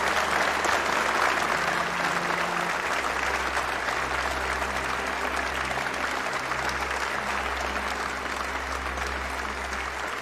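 Crowd of recruits applauding, many hands clapping at once, gradually dying down.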